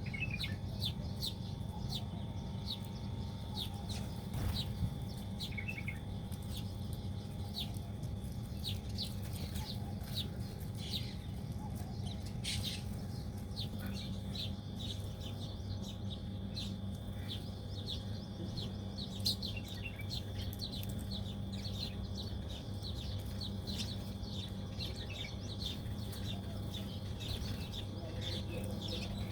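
Small birds chirping: many short, quick, high chirps, falling in pitch, come thick and fast, over a steady low background hum.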